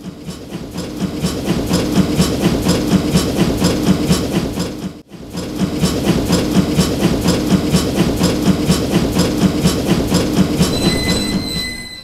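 Train passing a level crossing: a rhythmic clickety-clack of wheels over rail joints at about four beats a second. It swells in, breaks off briefly about five seconds in, then resumes and fades near the end.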